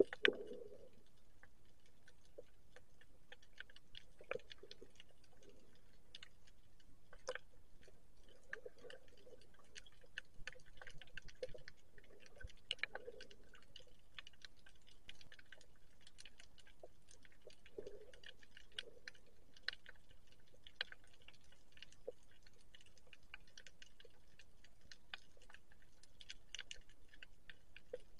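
Faint underwater crackle of many irregular sharp clicks, with a few soft, low, muffled swishes now and then.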